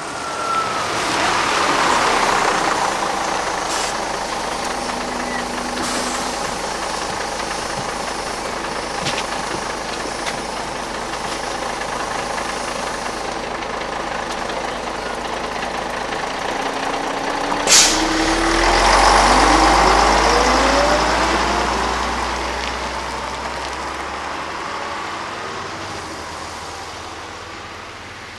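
A city bus pulls in with a brief falling brake squeal and idles at the stop, its diesel engine running steadily. About eighteen seconds in, a sharp hiss of air from the brakes comes. The bus then pulls away, its engine and drivetrain whine rising in pitch, and fades off.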